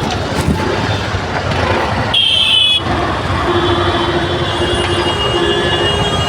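Road traffic noise from a jam of cars and trucks, with a vehicle horn sounding briefly about two seconds in and fainter horn tones later.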